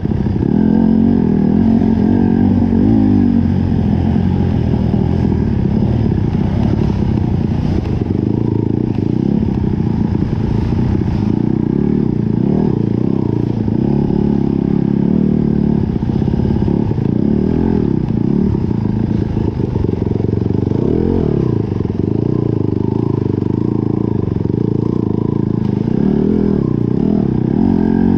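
Dirt bike engine running hard in an off-road race, its pitch rising and falling again and again as the rider opens and closes the throttle.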